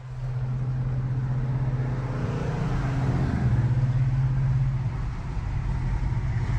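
Car engine idling with a steady low exhaust drone; the pitch shifts briefly about two to three seconds in.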